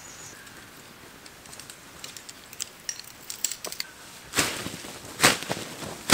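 Tent fabric being handled and shaken out as a backpacking tent is taken down: light rustles and small clicks, then several loud whooshes of the fabric being flapped in the last two seconds.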